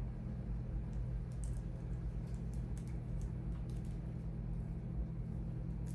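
Light plastic clicks and taps as charging cords and their plugs are handled and sorted, scattered irregularly over a steady low hum.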